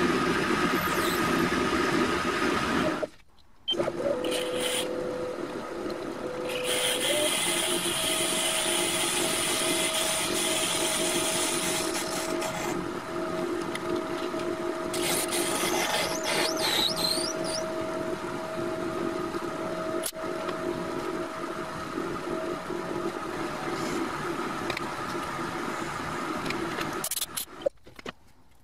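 TV-16 benchtop lathe running while a twist drill in the tailstock bores a small brass part, the motor and cutting giving steady tones over a machine noise. There is a short break about three seconds in, and the lathe stops shortly before the end.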